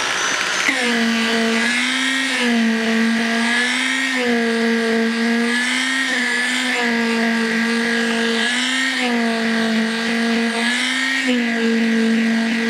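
Electric concrete poker vibrator running in fresh B25 concrete, compacting it in ring-beam formwork. It gives a loud, steady whine that starts within the first second and sags in pitch briefly every couple of seconds.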